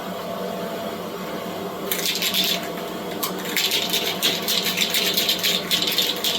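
Spray booth exhaust fan running with a steady hum. About two seconds in, a rapid, even rattling starts, briefly at first and then continuously, which is a rattle can of spray paint being shaken with its mixing ball clacking inside.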